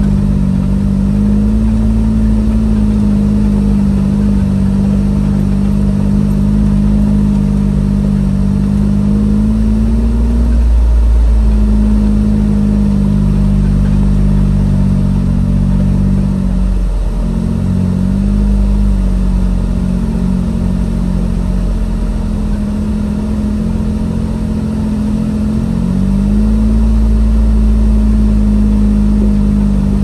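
Jeep Wrangler engine running at low speed on an off-road trail, with a steady low rumble and a pitch that rises and falls gently with the throttle. About seventeen seconds in the engine note drops sharply and then picks up again.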